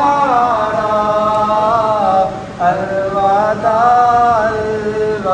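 A man reciting a naat, Urdu devotional poetry in praise of the Prophet, sung unaccompanied. He holds long, wavering notes that glide between pitches, with one short pause for breath about halfway through.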